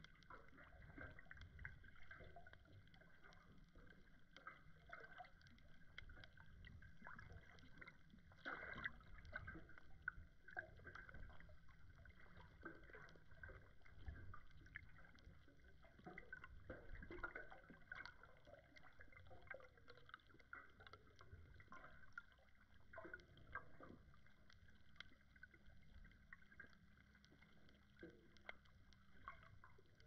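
Faint underwater sound heard through an action camera's waterproof housing: a low, muffled rumble of moving water with many scattered soft clicks and crackles.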